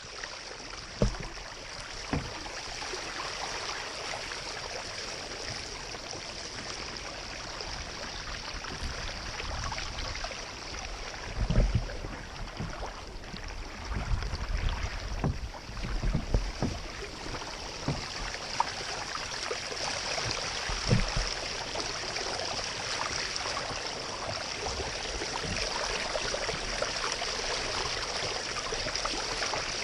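Steady rush of moving water, with a few low knocks and bumps, the loudest about eleven seconds in.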